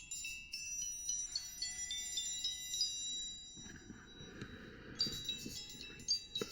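Samsung Galaxy S4 mini playing a chime-like ringtone through its loudspeaker: high, bell-like notes that ring and fade. A softer hiss follows about halfway through, then a new run of chiming notes starts about five seconds in, with a sharp click just before the end.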